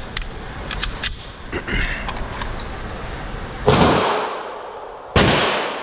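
A few sharp clicks of a pistol being handled, then two gunshots echoing in an indoor shooting range, about a second and a half apart, each with a long ringing tail.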